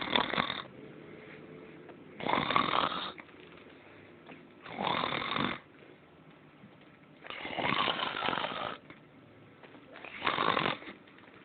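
A person snoring in deep sleep: five loud, rasping snores on the in-breaths, about two and a half seconds apart, with quieter breathing in between.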